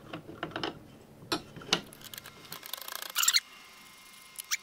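Clicks and rubbing scrapes of an air bottle with an Altaros regulator being screwed into a Kral Puncher Jumbo airgun by hand, with a louder rasping rattle about three seconds in and a single click near the end.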